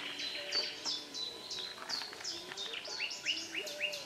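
Several songbirds singing at once in the lakeside trees: a busy mix of short, high chirps and falling whistles, with a quick series of alike falling notes in the second half.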